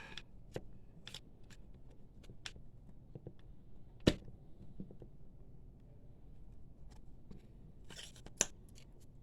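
Scraping dried, sticky ink off the rubber wiper of an inkjet printer's capping station: scattered short scratches and clicks, with one sharp click about four seconds in and a cluster of scrapes near the end.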